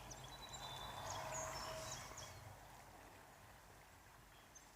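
Faint wild birds chirping, short high calls, over a quiet outdoor background; the calls thin out after about two and a half seconds.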